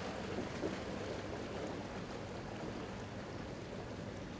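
Steady rush of running water with a low steady hum underneath.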